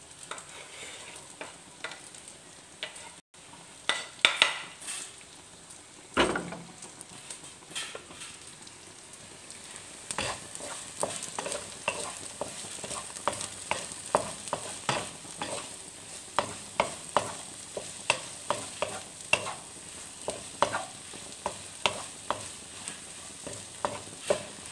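Diced fried tofu with shallots and green chilies sizzling in a nonstick wok, stirred with a wooden spatula. There is a steady sizzling hiss, a few louder knocks in the first several seconds, then quick, regular scrapes and taps of the spatula on the pan, more than one a second.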